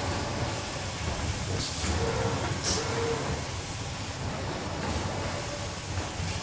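ZFM cardboard-processing machine running steadily, with a few short, sharp air hisses from its pneumatic lines.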